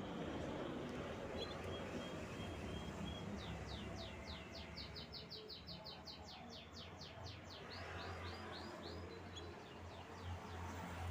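Canary singing: a few short chirps, then a fast trill of repeated downward-sweeping notes, about five or six a second, lasting several seconds. A low steady hum runs underneath.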